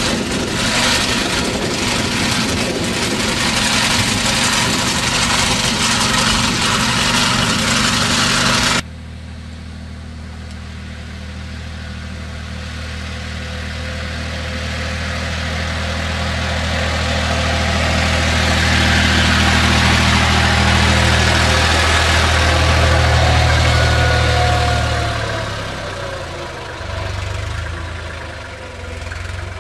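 Single-axle walking mower's small engine running under load as it mows grass; after a sudden cut about nine seconds in, a farm tractor's engine approaches, grows louder, then fades as it drives away, its engine note stepping down near the end.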